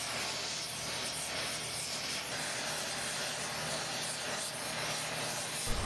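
Gas torch flame hissing steadily as it is played over a copper transmission-line flange to heat it for soldering.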